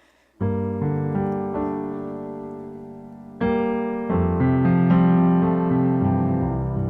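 Solo piano playing slow, sustained chords. The first chord comes in about half a second in and slowly fades, and a new chord follows about three seconds later, with more notes after it.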